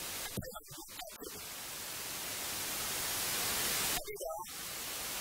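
Steady hiss of static on the recording, slowly growing louder, broken briefly about half a second in and again about four seconds in by faint, muffled fragments of sound.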